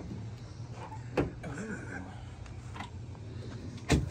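Camper shell rear hatch latch on a pickup being worked: a couple of faint clicks, then a louder click near the end as the latch releases and the hatch comes up, over a steady low hum.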